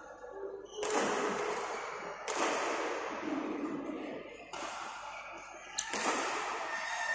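Badminton rackets striking a shuttlecock during a rally, four sharp hits roughly a second and a half apart, each ringing on in the hall's echo.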